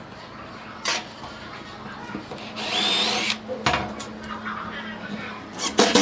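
A power tool runs briefly about halfway through, with a short rising whine, amid sharp knocks of tools and parts being handled. A steady low hum underlies it.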